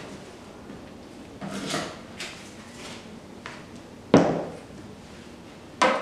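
Cloth rustling as a large cotton cloth is unfolded and spread over a metal baking tray, with a sharp knock about four seconds in and another near the end.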